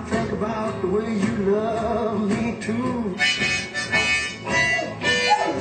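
Blues harmonica playing: long wavering, bent notes, then from about three seconds in a run of quick, rhythmic chords.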